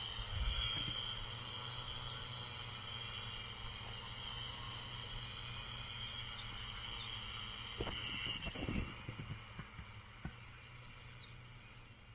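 Rural summer field ambience: insects chirping steadily in thin high bands over a low steady hum, with a few bumps of wind on the microphone near the start and about eight seconds in.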